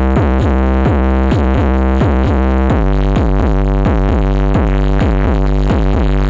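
Electronic dance music with a drum-machine beat and heavy, dominant bass, played loud through a large outdoor sound system of the kind set up for a sound check.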